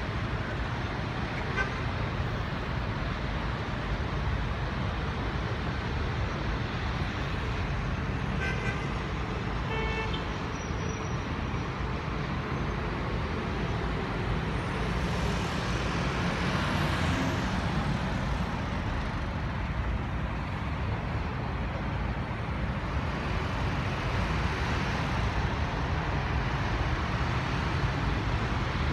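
Steady traffic noise of a jammed city street heard from high above, a continuous rumble of idling and slowly moving cars. A couple of short car-horn toots come about nine to ten seconds in.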